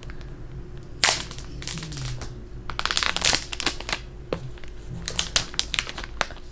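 Crinkling and tearing of an iPhone 12 Pro Max box's wrapping being pulled off by hand close to the microphone, in several short crackly bursts with small clicks between them.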